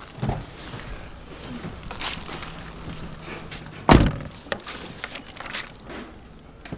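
Car door shut with a solid thump about four seconds in, heard from inside the car, after a smaller knock at the start and rustling as someone settles into the back seat.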